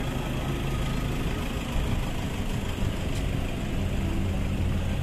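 Car engines idling in a line of stopped traffic: a steady, low engine noise.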